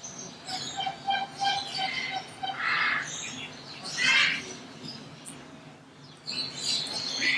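Parrot chirping and calling: a run of quick repeated chirps, then two louder harsh calls about three and four seconds in, and another burst of chirps near the end.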